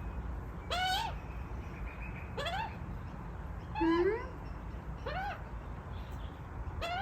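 Young Australian magpie begging for food with short, rising, plaintive calls, about five of them roughly every second and a half.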